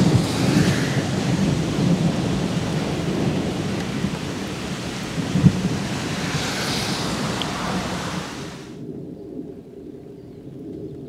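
Thunderstorm: wind and rain hissing, with a low rolling rumble of thunder and one short sharp knock about five and a half seconds in. The sound cuts off abruptly near the end, leaving only a faint low hum.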